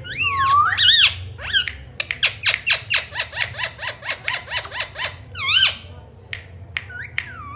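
Indian ringneck parakeet calling: wavering whistled calls in the first second or so, then a rapid string of short, falling chirps at about six a second. Another wavering whistle comes near the end.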